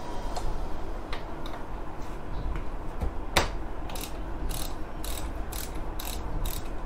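Ratchet wrench clicking as a bolt is worked, with a few scattered clicks, a sharp knock about three and a half seconds in, then steady ratcheting strokes about twice a second, over a low steady hum.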